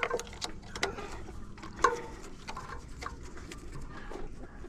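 Light clicks and taps of a hand tool working a mounting bolt loose on an e-bike's mechanical disc brake caliper, with a few sharper clicks in the first two seconds.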